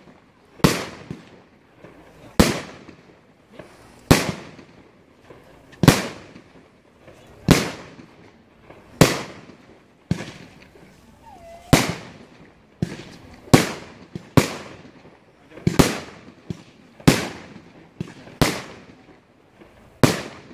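Aerial fireworks bursting one after another: a steady series of sharp bangs, about one every one to two seconds, each trailing off.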